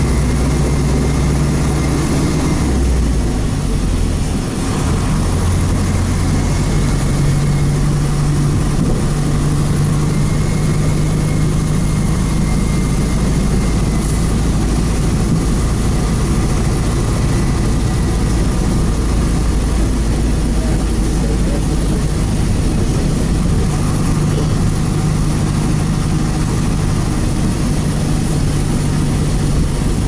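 PAZ-32054 bus engine running under way, with road noise, heard from inside the passenger cabin. The engine note is steady, with a brief dip about four seconds in.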